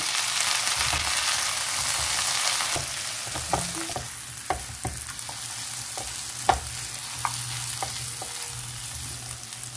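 Onion, garlic and spice masala sizzling in hot oil in a pan as tomatoes go in, the sizzle a little louder for the first few seconds and then easing. A spatula stirring it scrapes and knocks on the pan a dozen or so times.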